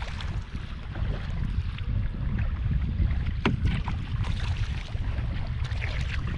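Wind buffeting the microphone with a steady low rumble, over the light splashing and dripping of kayak paddles dipping into river water.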